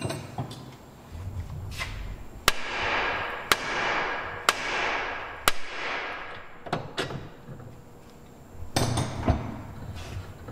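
Four sharp hammer blows on steel, about a second apart, each ringing briefly, then a few lighter knocks and a clatter as the outer tie rod end is knocked loose from the steering knuckle.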